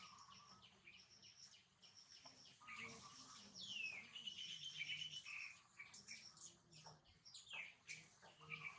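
Faint birdsong: small birds chirping in quick repeated high notes, with a few falling whistled notes around the middle.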